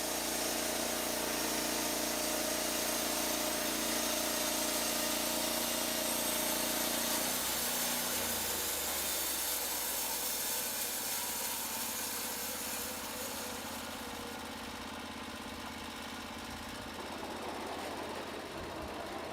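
Norwood LumberPro HD36 band sawmill's engine running steadily at speed while the blade is guided through a cut. About seven or eight seconds in, its steady pitch changes to a rougher, lower running that grows somewhat quieter in the second half.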